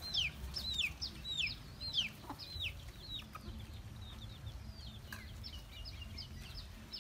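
Chickens cheeping: a quick run of high, falling calls, about three a second, growing fainter after about three seconds.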